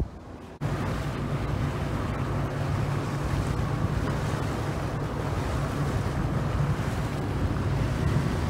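A boat under way: a steady low engine hum with wind buffeting the microphone and water rushing past. It starts abruptly about half a second in.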